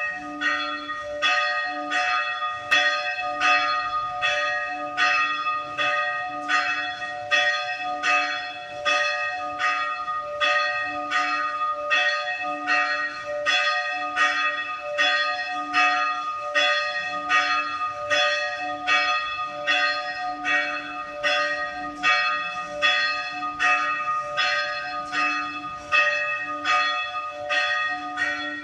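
Church bell ringing, struck over and over in a quick, even rhythm of roughly three strokes every two seconds, with the ringing carrying on between strokes.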